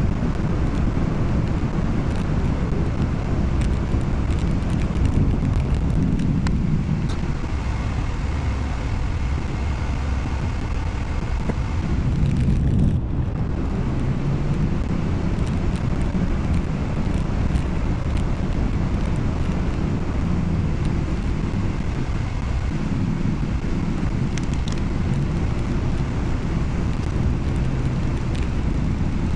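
Steady low rumble of tyres and engine heard inside a car's cabin while driving, with a brief drop in the hiss about 13 seconds in.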